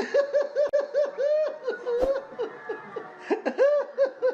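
A rapid run of short, high-pitched, rise-and-fall voiced calls, about four or five a second, with a brief lull about three seconds in. It is laugh-like in rhythm.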